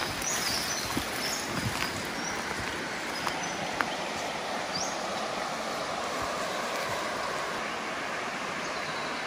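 Shallow creek water running over a pebble and rock bed, a steady babble, with a few short high bird chirps in the first second and again about five seconds in.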